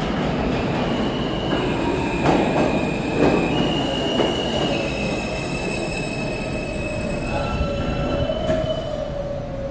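R160 subway train pulling into a station and slowing to a stop: a steady rumble with a high, held squeal from the wheels and brakes, and a few clunks over the rail joints in the first few seconds.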